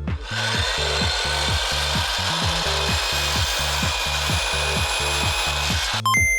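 Power saw cutting through a vinyl flooring plank: one steady cut that stops suddenly near the end.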